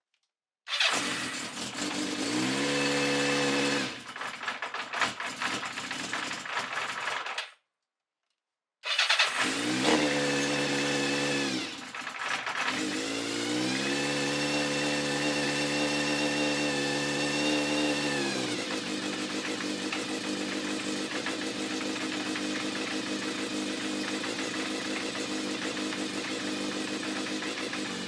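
Kawasaki Zephyr 750's air-cooled inline-four engine in two separate takes joined by a short silent cut. In each it starts and revs up. In the second it rises briefly, holds higher revs for about five seconds, then falls back to a steady idle.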